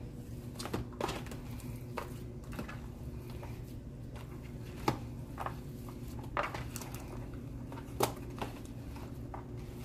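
Hands kneading and mixing raw ground meat in a plastic tray: soft squishing with scattered sharp clicks and taps, the loudest about five and eight seconds in, over a steady low hum.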